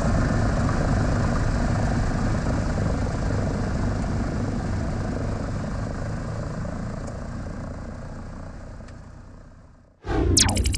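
A Douglas DC-3's Pratt & Whitney radial engines running steadily, heard from the cockpit with the sliding windows open, fading slowly away. Just before the end a short sound effect with a falling tone cuts in.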